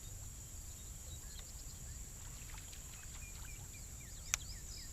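A steady high-pitched drone of insects with many faint, short bird chirps, and a single sharp click about four seconds in.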